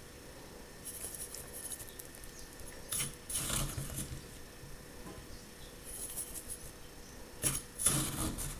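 Salt poured into a bowl of vegetable oil and sugar in several short pours: a light pattering rustle, strongest about three seconds in and again near the end.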